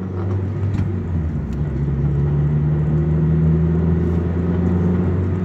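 Car engine and road noise heard inside the cabin of a moving car: a steady low drone whose engine note drops slightly in pitch about a second and a half in.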